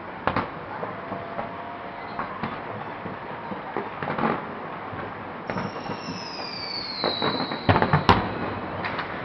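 Fireworks going off: scattered bangs and cracks over a steady rumbling background, with a high whistle sliding slightly down in pitch about five seconds in, and the loudest bangs coming in a quick cluster near the end.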